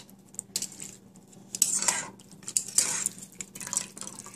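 Metal tongs clinking and scraping against a saucepan as thin-sliced beef is lifted out of the sauce, in several short bouts. The loudest come about a second and a half in and again near three seconds.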